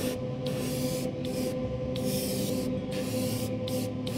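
An airbrush spraying paint onto a small camera part in short hissing bursts, cutting off and starting again several times, over a steady hum.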